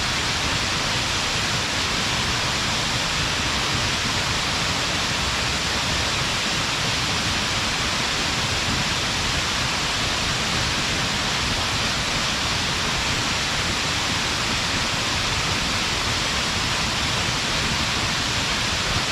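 Waterfall falling into a gorge stream: a steady, unbroken rush of water with a bright hiss that does not change.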